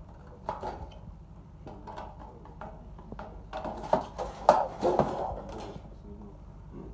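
Hand tin snips cutting thin galvanized sheet steel, a series of short crunching snips, with a louder stretch of the sheet flexing and rattling about halfway through.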